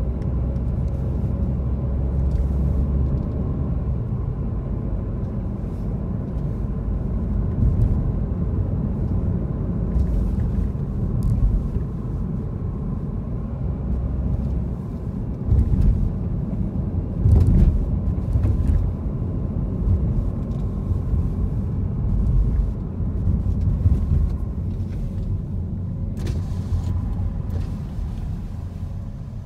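Car driving through city streets, heard inside the cabin: a steady low engine and road rumble with a few faint knocks, dying down near the end.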